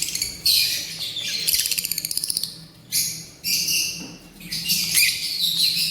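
Caged African lovebirds calling: shrill, buzzy, rapidly pulsing screeches in several bursts with short breaks between them.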